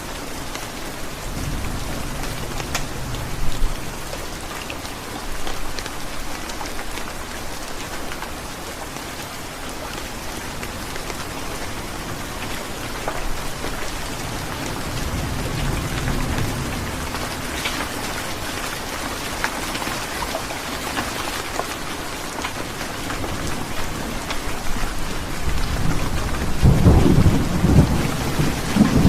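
Heavy rain falling steadily, with low thunder rumbling three times, the loudest rumble near the end.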